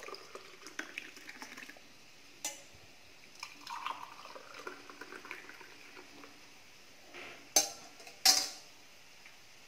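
Hot lemon-ginger water quietly poured from a steel pan through a wire-mesh tea strainer into two ceramic mugs, with small clicks along the way. Near the end come two sharp metallic clinks as the pan is set back down.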